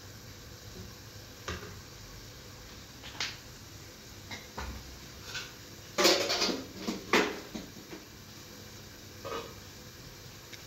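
Kitchen cookware and utensils being handled on a counter: scattered metal clinks and knocks, with a burst of clattering about six seconds in that is the loudest part.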